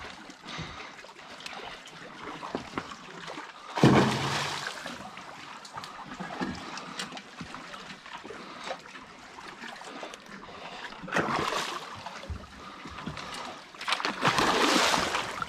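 Water dripping and trickling off a trotline being pulled in by hand, with three louder splashes: a sharp one about four seconds in, one a little past halfway, and a longer one near the end as a hooked flathead catfish thrashes at the surface.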